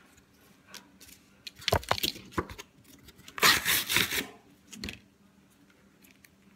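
A paper plate and cardboard puppet pieces being handled on a tabletop: a few quick knocks and taps, then a loud papery rustle and scrape, then one more knock.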